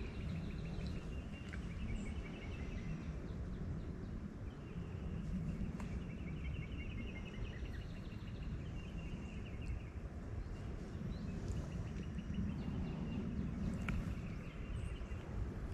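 Steady low wind rumble on the microphone. Above it, a high, rapid animal trill repeats several times.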